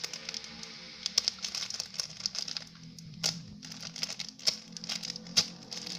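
Irregular crinkling and rustling with scattered sharp clicks as a squishy toy is handled close to the microphone.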